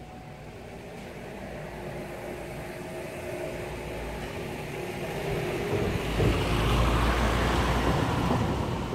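A motor vehicle approaching and driving past, its engine and tyre noise growing steadily louder to a peak about six seconds in, then easing off slightly.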